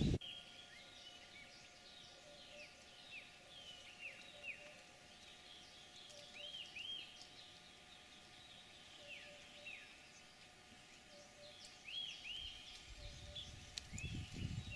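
Birds calling: short arching chirps, often in pairs, repeating every second or two over a faint steady hum. A low rumble comes in near the end.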